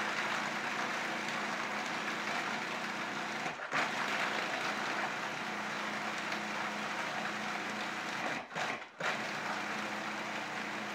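Food processor running, grinding whole eggs with their shells into a liquid. The motor cuts out briefly twice, about three and a half seconds in and again near eight and a half seconds in, then starts again.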